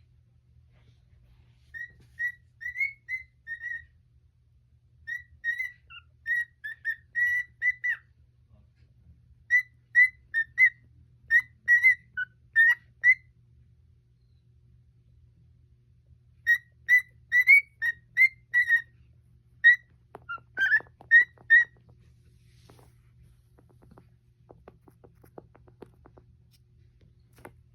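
Cockatiel whistling in runs of short, quick notes at much the same pitch, in four bursts with pauses between. Faint clicks follow near the end.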